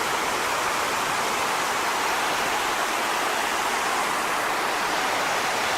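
Sol Duc Falls rushing: a steady, even roar of falling water.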